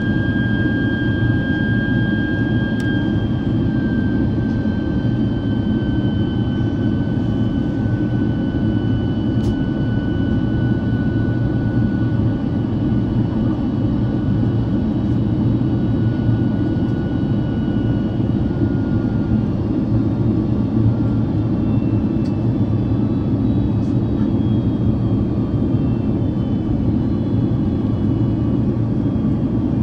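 Cabin noise of a Boeing 767-400 airliner: a steady heavy rush of jet engine and air noise, with a faint high whine that slowly drops in pitch and fades out about two thirds of the way through.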